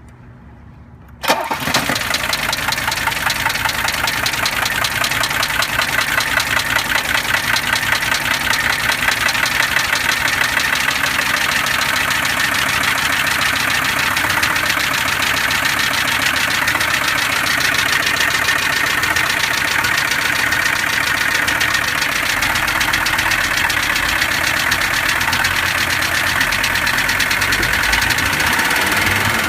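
Mercedes-Benz W123 300D five-cylinder turbo diesel running at idle, coming in abruptly about a second in, with a loud, fast, even knocking and ticking that signals an engine problem the owner is still diagnosing.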